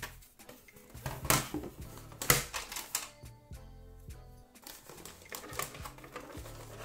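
Hard plastic Battleship game parts clattering and knocking as they are handled, with two sharp knocks in the first few seconds and lighter clicks after, over background music.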